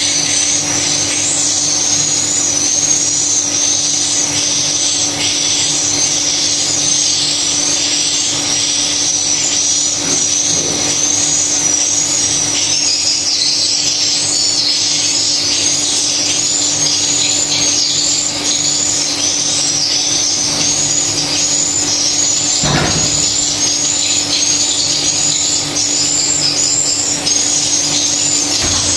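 Swiftlet calls: a dense, continuous stream of high, repeated chirps over a steady low hum, with a single knock about two-thirds of the way in.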